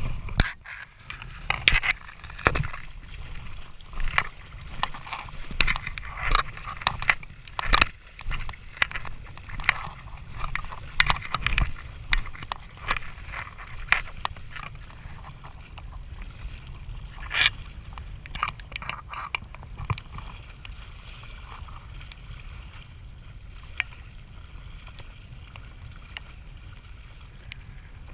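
Water sloshing and splashing with irregular knocks, most frequent in the first two-thirds and settling down toward the end, over a steady low wind rumble on the microphone.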